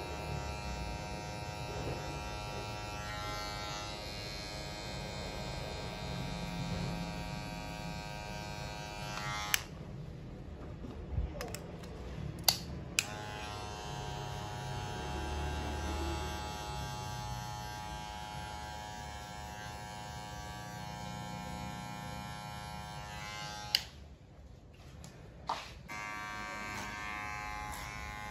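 Electric hair clipper buzzing steadily as it trims hair close around the ear. The buzz stops twice, about ten seconds in and again near the end, each time for a couple of seconds, with a few sharp clicks in the gaps before it runs again.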